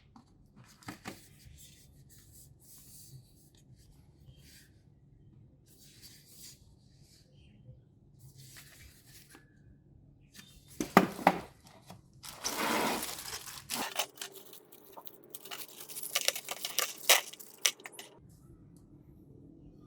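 Packaging being handled and opened: intermittent crinkling of plastic wrap with a longer tearing sound just past the middle, followed by a run of sharp clicks and taps.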